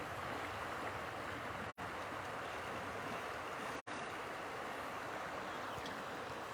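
Steady rushing of flowing water, broken twice by a momentary drop to silence.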